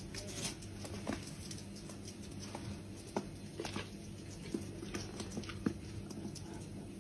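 Light, irregular clicks and scrabbling of a tiny pet's claws on a wooden floor as it plays around a large dog, over a low steady hum.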